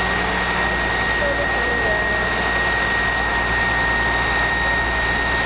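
Fire truck engine running steadily to drive the aerial platform's hydraulics as the platform is lowered, with a steady high whine over the engine noise.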